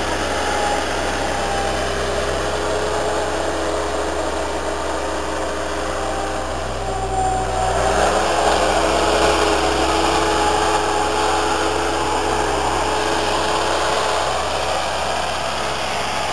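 Bobcat 873 skid steer's diesel engine running steadily, getting a little louder and rougher about halfway through.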